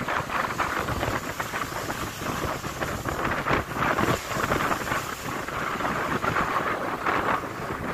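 Ocean surf breaking and washing up a dark gravel beach: a dense rushing hiss that swells and eases with the waves, with wind rumbling on the microphone.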